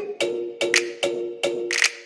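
Background music with a steady percussive beat, about two and a half beats a second, over held pitched notes. It dips briefly near the end.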